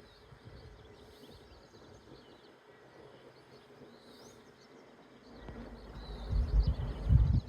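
Small birds chirping in the background over a faint outdoor hiss; in the last two seconds a low rumble swells up and becomes the loudest sound.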